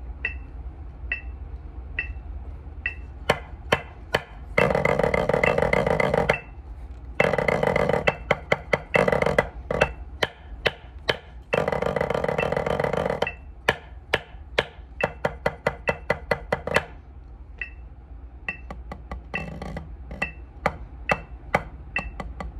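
Wooden drumsticks on a practice pad playing a snare etude: single accented strokes and taps, each with a short ringing ping, broken by three sustained rolls about 5, 8 and 12 seconds in, with quick runs of strokes after them and again near the end.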